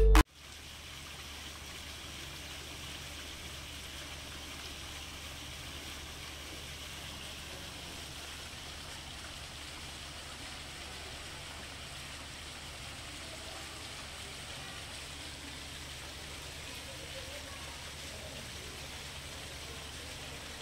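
Several small fountain jets splashing into a shallow pool: a steady, even rush of falling water. A burst of music cuts off right at the start.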